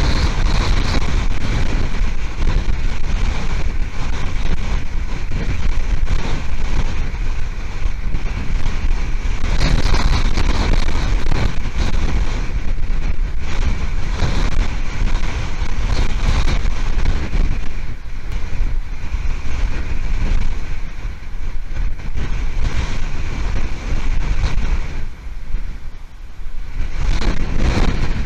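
Hurricane-force wind buffeting the outdoor nest camera's microphone: a loud, continuous rush and rumble that swells and eases with the gusts, dipping briefly about 25 seconds in.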